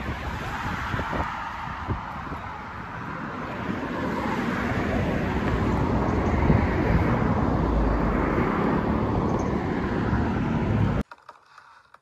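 Traffic noise on a city street: cars passing, with a low rumble that grows louder through the second half, then cuts off suddenly about a second before the end.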